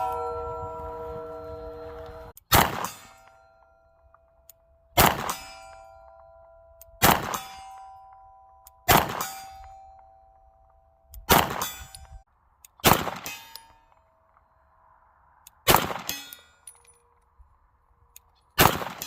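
Atlas Ares 2011 pistol fired at a slow, steady pace, eight shots about two seconds apart. Each shot is followed by the clang and fading ring of a struck steel target.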